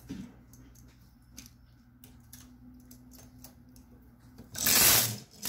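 Light metallic clicks of a stitch-transfer tool on the latch needles of a Brother knitting machine, then near the end two loud sliding rushes, one after the other, as the carriage is pushed across the needle bed and back, knitting two rows.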